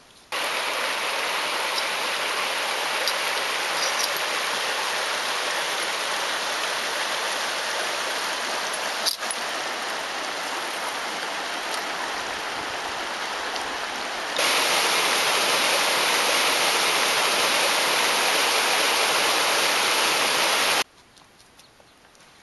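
Steady rush of a shallow, rocky river's water. It starts suddenly, grows louder about fourteen seconds in, and cuts off near the end.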